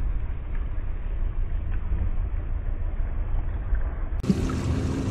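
A small boat's motor running under way, heard as a steady low rumble with water noise. A little over four seconds in, the sound cuts to a clearer, steady engine hum.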